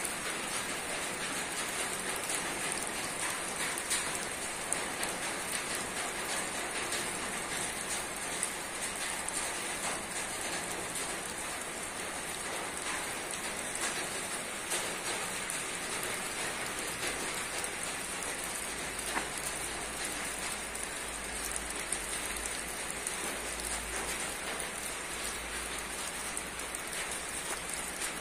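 Steady rain falling on a roof, with many individual drops ticking on the surface over the even patter. A low rumble sits underneath from about halfway on.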